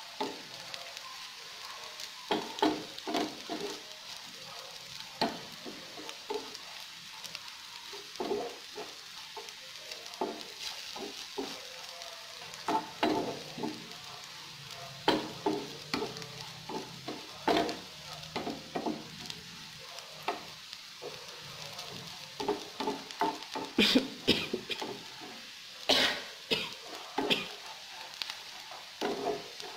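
Diced beef sausage sizzling in oil in a frying pan, stirred with a wooden spatula that scrapes and knocks against the pan in many short, irregular strokes over the steady hiss of the frying.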